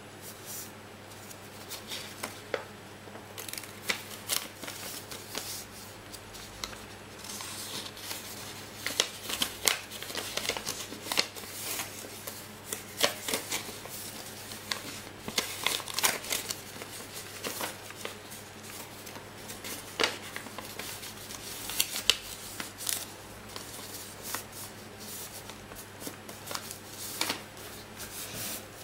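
A sheet of paper being folded and creased by hand into a paper boat: irregular rustling and crinkling, with sharper crackles as folds are pressed flat.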